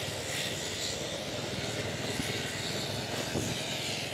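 Steady street traffic noise heard while moving along a road: a continuous drone of vehicle engines and road noise, with no single sound standing out.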